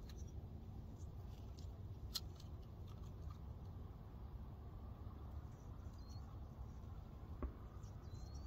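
Quiet outdoor background: a steady low rumble with one sharp click about two seconds in, a soft knock near the end, and two brief faint high chirps.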